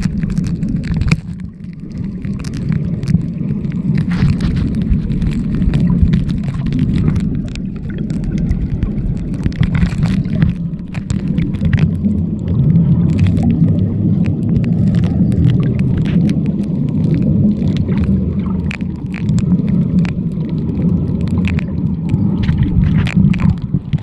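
Muffled underwater noise picked up through a Samsung Galaxy S7 Edge's microphone while submerged in seawater: a steady low rumble of moving water with scattered clicks and crackles throughout.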